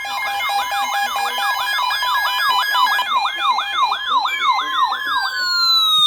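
Electronic emergency siren and alert tones: a fast yelping siren sweeping up and down about two or three times a second over a steady two-note alert tone, with a long falling wail at the start and another from about four seconds in. The yelp stops shortly before the end and everything cuts off abruptly.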